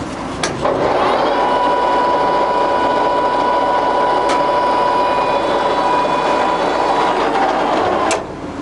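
Jessey Major 1860 centre lathe's geared headstock running the spindle at 115 rpm, a steady gear whine. It starts with a click about half a second in and runs down near the end, with another click as it stops.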